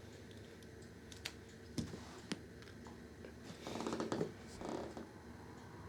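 Three sharp clicks, then a short rattling scrape about halfway through, from handling the fan's power plug and cord while plugging it in.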